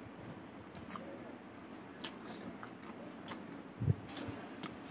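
Close-up chewing with scattered sharp, wet mouth clicks, and fingers gathering rice across a steel plate. A dull thump about four seconds in.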